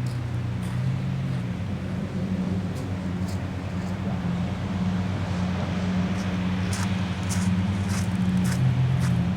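Mercedes-AMG GT R's twin-turbo V8 with a Fi exhaust idling steadily, with a few light clicks.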